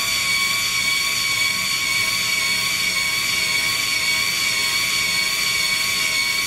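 InStyler MAX rotating hot iron's motor turning its barrel, a steady whine that holds one pitch throughout.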